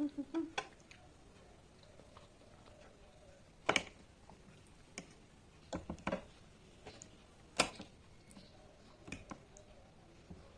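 Eating sounds close to the microphone: a handful of sharp, scattered clicks and taps, with a few quieter ones between.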